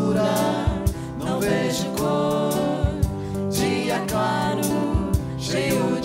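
A small band playing a song live: male and female voices singing over guitars and drums, with kick-drum strikes in pairs about every two seconds.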